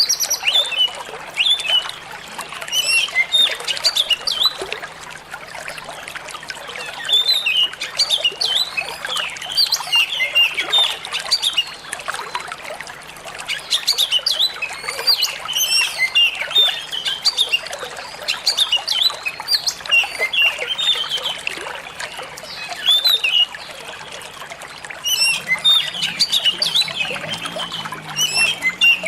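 Songbirds chirping and twittering in quick, busy phrases over a steady trickle of flowing water.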